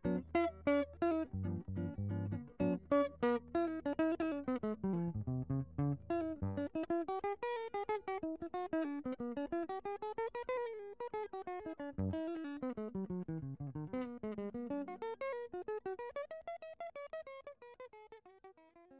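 Background instrumental music: a plucked guitar playing quick runs of notes that climb and fall, over a bass part that stops about a third of the way in. It gets quieter near the end.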